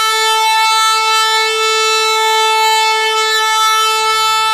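A single loud, steady horn-like note held at one unchanging pitch.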